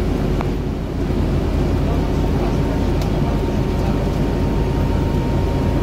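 Scania Citywide 12 LF city bus under way, heard from inside the passenger cabin: a steady low engine drone mixed with road noise, with a faint high steady whine coming in about two seconds in.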